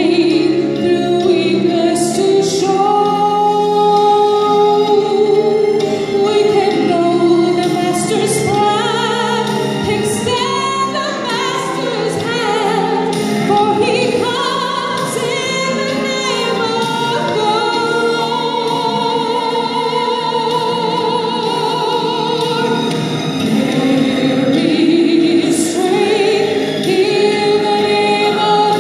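A woman singing a slow melody in long held notes with vibrato, over a steady sustained accompaniment.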